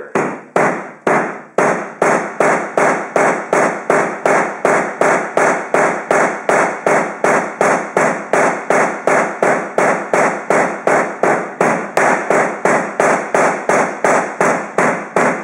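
A hammer striking an HDMI cable again and again in the same spot, about three blows a second at a steady rhythm, each a sharp impact with a short ring.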